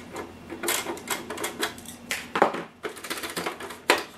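Irregular clicks and knocks of a 1/14 Tamiya Ford Aeromax model truck's hard plastic cab body being handled and worked loose from its chassis, with two sharper knocks about two and a half and four seconds in.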